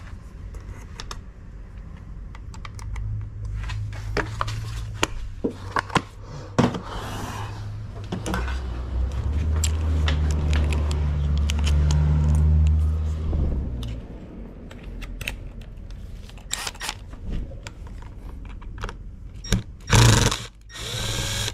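Small clicks, taps and scrapes of screws and tools being worked on the yoke steering wheel's plastic and metal parts. A low steady hum underlies it from a few seconds in and grows louder for about five seconds in the middle.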